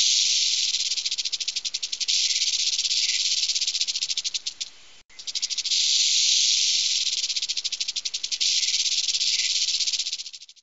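Rattlesnake rattle sound effect: a dry, high buzz that flickers into rapid pulses, heard in two stretches with a brief break about five seconds in, fading out near the end.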